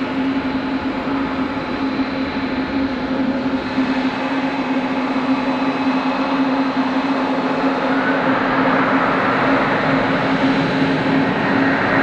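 Boeing 777 twin turbofan engines running with a steady hum and rushing noise; the rush swells from about eight seconds in as thrust is brought up for the takeoff roll.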